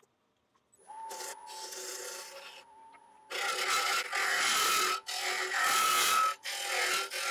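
A gouge cutting into a spinning ash blank on a wood lathe. After a near-silent first second there is a quieter tone with scraping, then from about three seconds in the tool bites harder and the cutting gets much louder, in several passes with brief breaks.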